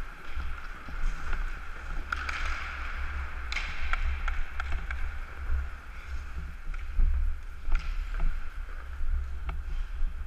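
Hockey skate blades scraping and carving on the ice, with swells of hiss at each hard stride or stop, over the steady low rumble of wind noise on a helmet-mounted camera. A few sharp clacks, the kind sticks and puck make, come about a third of the way in, twice in quick succession, and again near the end.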